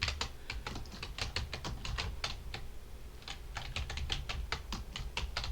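Typing on a computer keyboard: a quick, uneven run of key clicks, pausing briefly a little past halfway before the typing picks up again.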